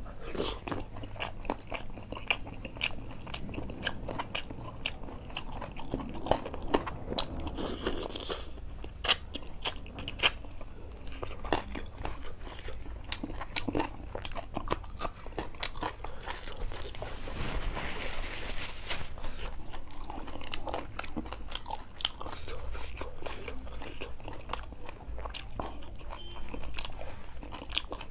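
Close-miked eating: a man biting and chewing chicken curry and a raw green chilli, with many sharp crunching clicks and wet mouth sounds, and a noisier smeared stretch about two-thirds of the way through.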